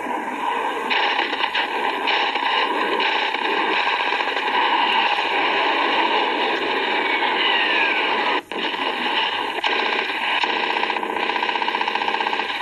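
Heavily distorted soundtrack of old war footage heard through a screen's speaker: a jet aircraft's steady noisy roar, a falling whistle, then a fast rattle from about nine seconds in.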